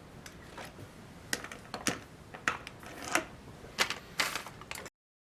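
A run of sharp, irregular clicks and taps, roughly one every half second, like small hard objects being handled on a workbench; the sound cuts off abruptly near the end.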